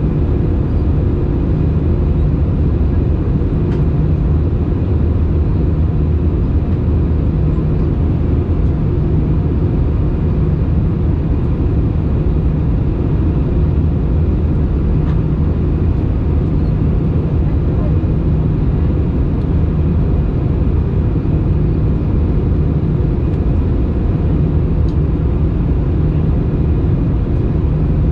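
Steady cabin noise of an Airbus A319 airliner in flight: a constant low drone of the jet engines and rushing air, with a few steady low hums in it.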